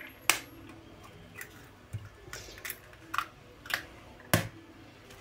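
Eggs being cracked on the rim of a plastic mixing bowl: a series of sharp taps of shell on plastic and shell breaking, about eight in all, the loudest just after the start and near the end.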